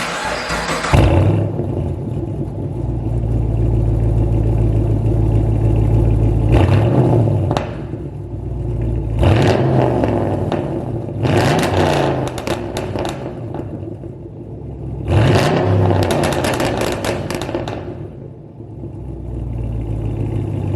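Chevy Caprice PPV's 6.0-litre L77 V8 starting up and idling through a cat-and-resonator-delete exhaust with Dynamax bullet mufflers. It is revved four times over the idle, each rev rising and falling back.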